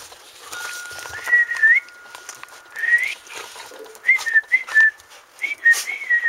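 A person whistling in short phrases: two rising glides, then a run of quick up-and-down notes over the last couple of seconds, the kind of whistle used to call dogs.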